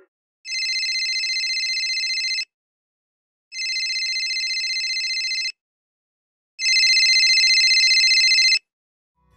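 A telephone ringing: three trilling rings about two seconds each, a second apart, the third louder.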